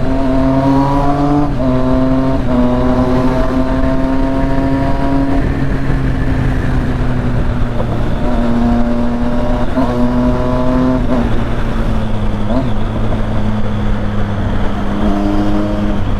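Triumph Street Triple 675's inline-three engine on an aftermarket full exhaust, accelerating hard with two quick upshifts in the first few seconds. It then eases off and pulls again from about halfway, with another upshift, and picks up once more near the end.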